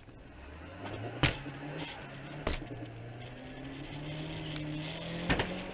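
Car engine running, heard from inside the cabin through a dashcam, its pitch climbing gradually as the car speeds up, with three sharp clicks along the way.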